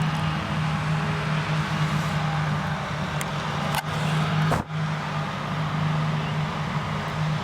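Krone Big X 1100 self-propelled forage harvester running at full power under load while chopping standing triticale: a steady, loud V12 diesel drone with a strong low hum over the rushing noise of the chopper and crop flow, briefly dipping about four and a half seconds in.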